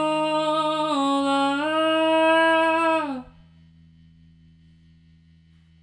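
A male singer's voice holding a last wordless note, close to the microphone. The note steps down in pitch about a second in, steps up again about half a second later, and stops about three seconds in. A faint steady low hum remains after it.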